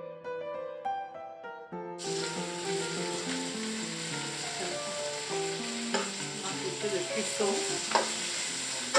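Background music alone at first; about two seconds in, chicken pieces begin sizzling steadily as they pan-fry in oil in a nonstick pan, the music carrying on underneath. Metal tongs click against the pan a few times in the second half.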